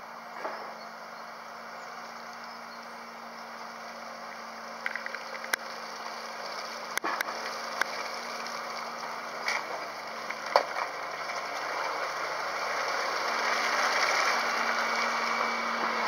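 Wheeled excavator's diesel engine running as the machine drives closer, growing steadily louder, with a few sharp knocks about a third to two-thirds of the way through.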